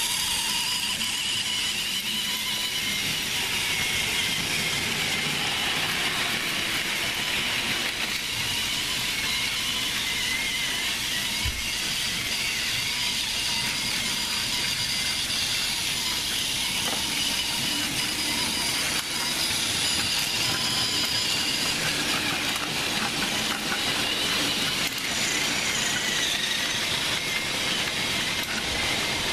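Several battery-powered Plarail toy trains running on plastic track. Their small gear motors make a steady whir with several high whining tones that drift slightly in pitch.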